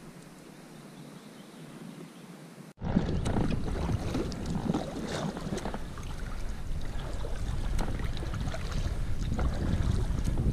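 Wind buffeting the microphone over water lapping and splashing against an inflatable kayak's hull, with small knocks and ticks. It is quiet at first and jumps abruptly louder about three seconds in.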